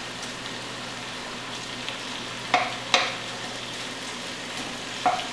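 Ground beef frying over medium-high heat in an enameled Dutch oven with onions and garlic: a steady sizzle while a wooden spatula breaks the meat up. Three short knocks of the spatula against the pot, two close together a little after two seconds in and one near the end.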